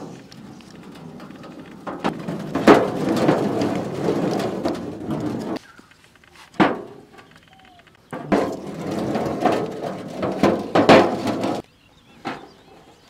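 Raw eggs clattering and knocking against each other and on metal as they are emptied by hand from plastic egg trays into a large shallow metal pan. The sound comes in two long spells of dense clatter, with a few single knocks between them.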